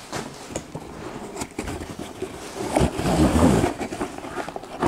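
Handling noise of the tripod's cardboard box being opened out and the tripod in its bag being pulled from it: rubbing, scraping and small knocks, busiest about three seconds in.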